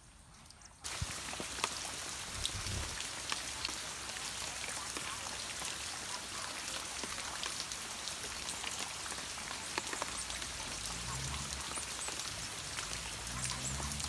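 Steady rain pattering on leaves, a dense hiss with many small drop ticks, starting abruptly about a second in.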